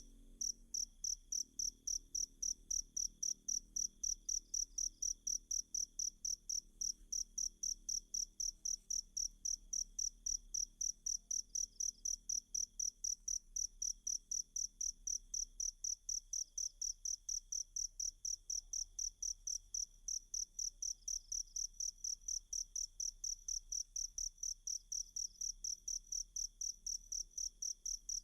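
Cricket chirping steadily, about three high, even chirps a second, with a fainter continuous trill beneath.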